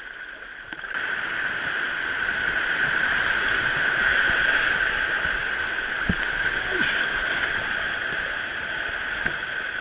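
Rushing water of a mountain stream's rapids, a steady rush that swells about a second in.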